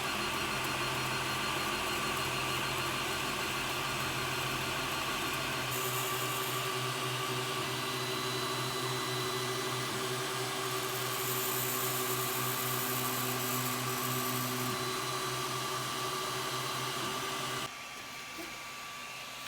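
3D printer running, its motors whining in several steady tones that shift as the print head moves, over a fan-like hiss. The motor sound cuts off suddenly near the end, leaving a quieter hum.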